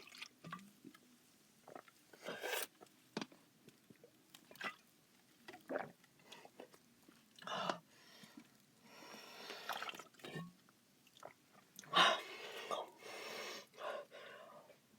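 Close-miked mouth sounds of a person sipping sparkling water: sips, swallows and lip smacks as scattered clicks, with several short breathy rushes, the loudest about twelve seconds in.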